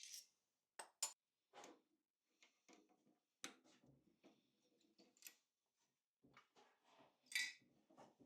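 Faint, scattered clicks and light metallic clinks of small metal parts and tools being handled on a workbench, the loudest clink near the end.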